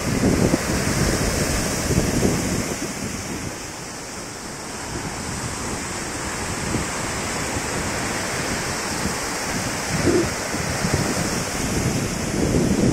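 Sea surf breaking and washing up the beach, a steady rushing of water that eases about four seconds in and builds again. Wind buffets the microphone in gusts, most at the start and near the end.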